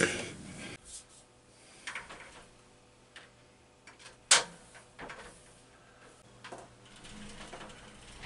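A few sharp clicks and knocks as glass sliding shower doors and their clear plastic edge strips are handled and fitted, the loudest knock about four seconds in.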